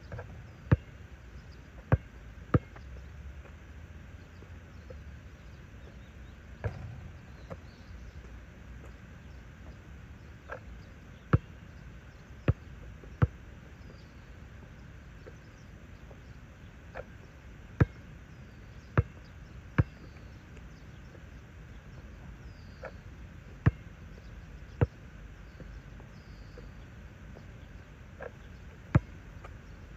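A basketball bouncing on an asphalt court. Sharp single bounces come in clusters of two or three, about five times over the stretch, each cluster as the ball comes down after a shot, over a steady low background hum.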